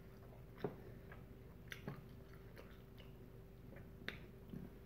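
Faint chewing with a few scattered soft clicks about a second apart, over a steady low hum.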